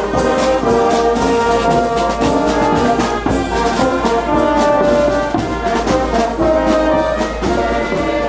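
Marching brass band playing a melody in held notes, with a steady beat underneath.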